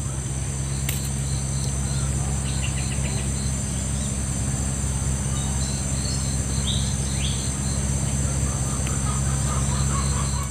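Insects chirping, cricket-like, in an even pulsing rhythm of about three chirps a second, over a steady low hum.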